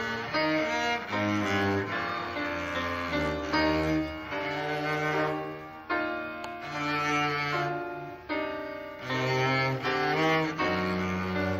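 Live classical instrumental duet playing a slow piece, moving through long held notes.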